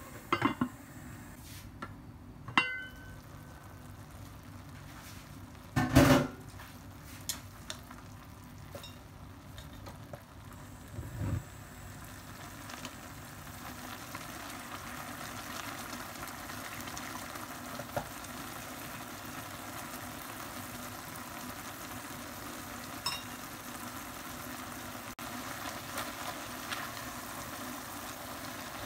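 Sauce bubbling and sizzling under noodles in a pot on the stove, a steady sizzle that grows a little louder after about twelve seconds. A few sharp knocks against the pot come in the first dozen seconds, the loudest about six seconds in.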